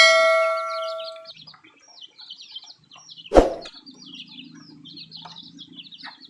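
Ducklings and chicks peeping continuously in short, high chirps. A ringing tone fades out over about a second at the start, a single thud comes about three and a half seconds in, and a low hum runs under the peeping after that.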